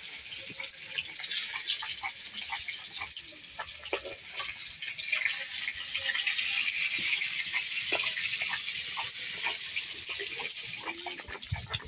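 Spice seeds being crushed and ground on a sil-nora, a pitted flat grinding stone worked with a hand-held stone roller: a gritty scraping hiss with many small crunches. A short pitched call is heard near the end.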